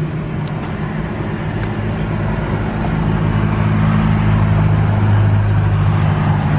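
A road vehicle's engine running close by, a steady low hum that grows louder over the first few seconds and then holds, with street noise around it.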